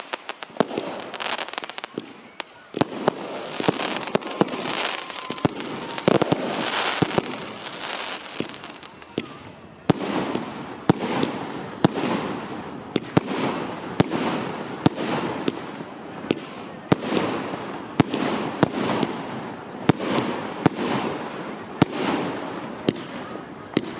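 Fireworks going off: sharp bangs with crackling. From about ten seconds in comes a steady run of shots a little more than one a second, each followed by crackling, like a firework cake firing.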